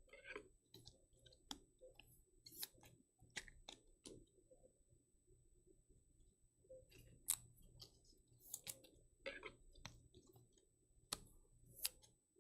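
Faint, irregular clicks and light scrapes of trading cards being handled and slid into rigid plastic top loaders, the sharpest click about seven seconds in.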